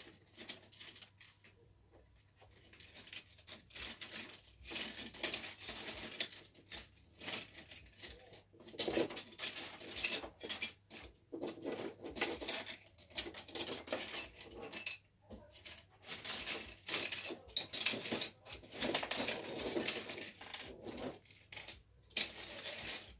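Someone rummaging through loose plastic Lego pieces, searching for a missing part. Irregular clicking, rattling and rustling comes in bursts with short pauses.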